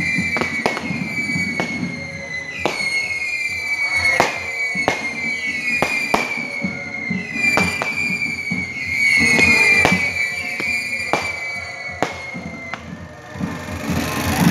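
Whistling fireworks: a rapid run of sharp bangs, about one or two a second, each followed by a high whistle that slowly falls in pitch. The bangs stop shortly before the end, with band music playing underneath.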